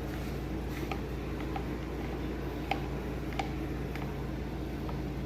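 Steady low electrical or fan hum, with a few faint, sharp clicks of small metal and plastic parts being handled during the weed trimmer reassembly.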